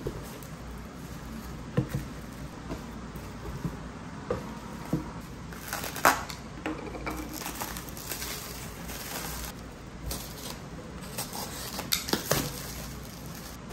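Cardboard box and plastic-wrapped items being handled during unpacking: cardboard rustling and plastic wrap crinkling, with scattered light knocks as items are moved and set on a table. The sharpest knock comes about six seconds in.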